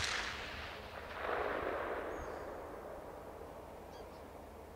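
Carbine shot from the neighbouring stand, heard at a distance: the crack comes right at the start, then its report rolls back in a long echo that swells about a second in and fades slowly over the next few seconds.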